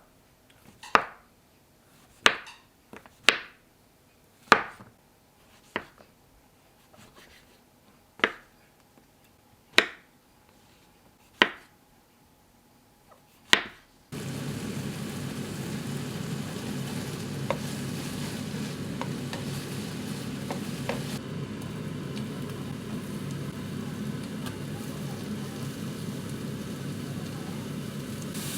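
About ten sharp, separate taps and knocks at irregular intervals. Then, about halfway through, a sudden change to a steady sizzling hiss with a few faint crackles, as of food frying in a pan.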